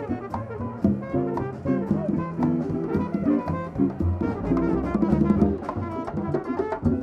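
Live small-group jazz: a saxophone playing a running melody over a drum kit with frequent cymbal and drum hits and a walking double bass line.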